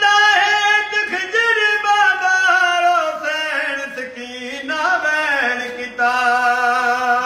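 A man singing a noha, a Shia lament, alone and unaccompanied: long drawn-out notes that wind slowly downward, then one steady held note near the end.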